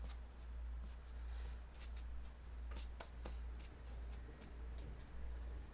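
A 1-inch synthetic brush stroking acrylic paint across a stretched canvas: soft, short scratchy strokes about two a second, over a low steady hum.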